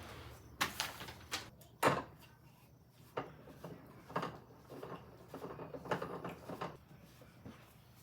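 Irregular knocks, taps and clatter of cat-tower parts being handled and fitted together during assembly, the loudest a single thump about two seconds in, with a busier run of rattling handling noises later on.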